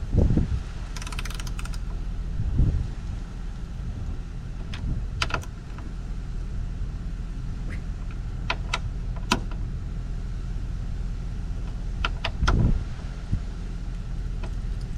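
Ratchet wrench working the hatch strut mounting bolts: scattered sharp metallic clicks and a few dull knocks over a steady low hum.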